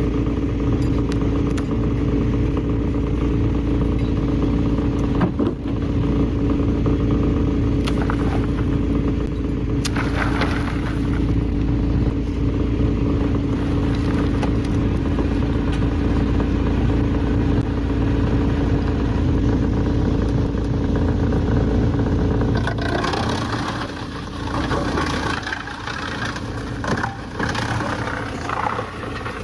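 Heavy machinery running steadily with a constant hum and low rumble, with occasional clatter; from about three quarters of the way in, rattling and scraping grow busier.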